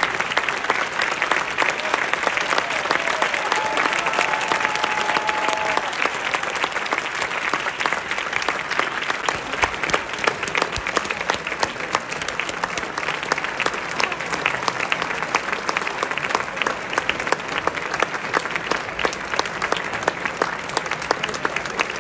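A large audience applauding in a concert hall: dense, steady clapping from many hands that carries on at an even level throughout.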